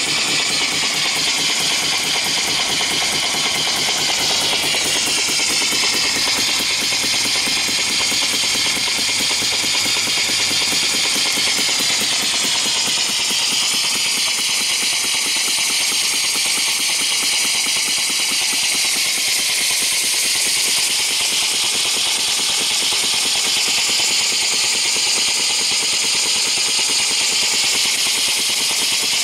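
Small vertical single-cylinder steam engine running fast, its exhaust pipe blowing out steam in rapid, even chuffs over a steady hiss.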